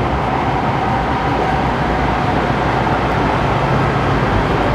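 Light rail train running through an underground tunnel, heard from inside the car: a steady rumble with a steady mid-pitched whine.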